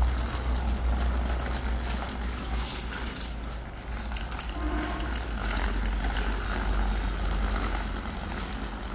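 A small children's bicycle with training wheels rolling over a tiled yard: a steady low rumble with light rattling and clicking from the wheels.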